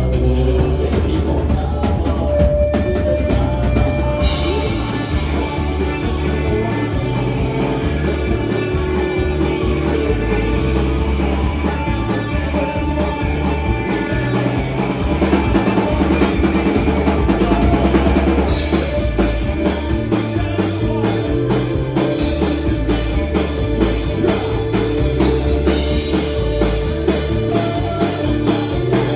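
Live band playing with a full drum kit, bass and guitar in a steady, driving beat. The sound grows brighter and fuller about four seconds in.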